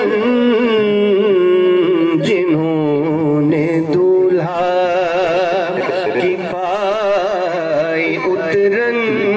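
A man's voice singing a naat, holding one long drawn-out melodic line whose pitch wavers continuously.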